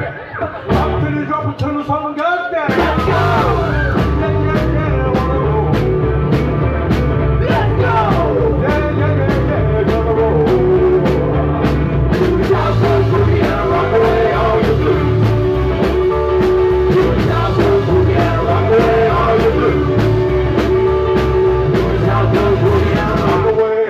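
Live rock and roll band playing: a man singing over upright double bass, electric guitar and a steady beat. After a brief break at the start, the full band comes back in about two and a half seconds in.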